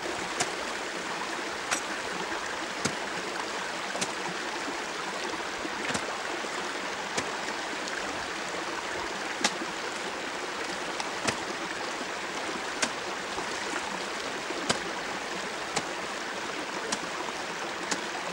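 Steady rushing of running water, a glacial meltwater stream, with short sharp clicks every second or two.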